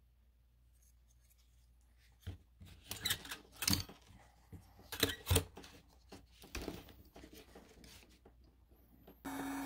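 Small tools and parts being handled and set down, a run of clicks and knocks. Near the end the 8018LCD hot air gun is switched on and its fan starts with a sudden steady blowing noise and hum.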